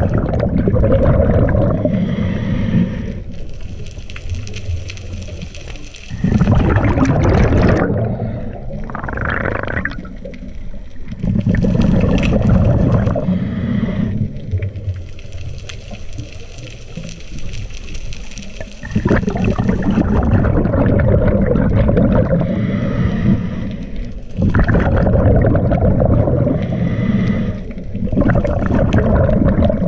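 Scuba diver breathing through a regulator underwater: a loud gurgling rush of exhaled bubbles comes every five seconds or so, with quieter stretches between.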